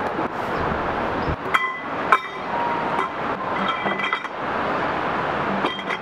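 Metal tent-pitching gear clinking: sharp metallic clinks that ring briefly, one about a second and a half in, another at two seconds, a short cluster around four seconds and another near the end, over a steady rushing background.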